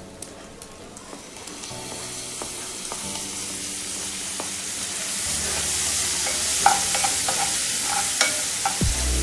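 Food sizzling in hot oil in a pan, the sizzle building and growing louder over the first few seconds, with occasional clicks of a utensil against the pan.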